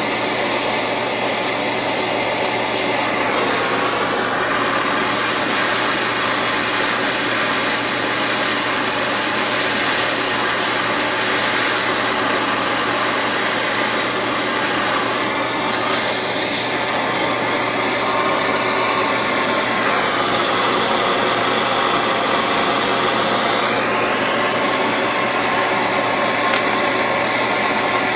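Gas torch flames burning with a steady rushing hiss while heating a fluxed bandsaw blade joint to flow silver solder.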